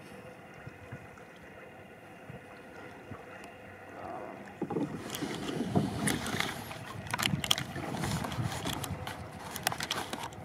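Kayak paddle dipping and splashing in the water, with drips and small knocks, starting about halfway through after a faint steady hiss.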